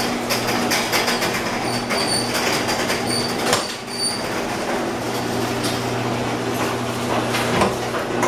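Car engine running with a steady, rapid metallic knocking, which the owner suspects is a rod bearing that overheated and has come loose.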